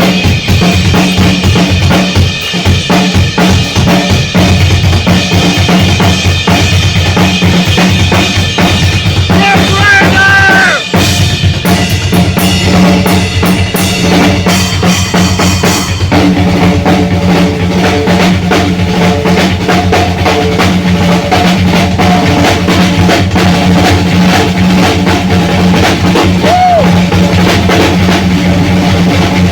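Rock drum kit played as a live solo: rapid, unbroken strokes on bass drum, snare and toms under a wash of cymbals.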